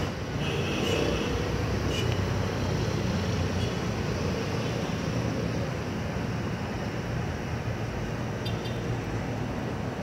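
Steady rumble and hiss of distant city traffic, with a few faint brief sounds in the first two seconds.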